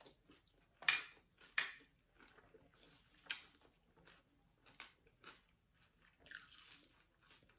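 Close-miked chewing and crunching as a mouthful of raw oyster and fresh leafy greens is eaten, in irregular crisp bursts, the loudest about a second and a second and a half in.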